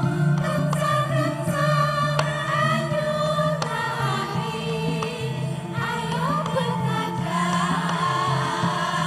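A choir of Javanese sinden, women singing together in the Javanese vocal style, backed by gamelan with steady low tones and occasional sharp strikes.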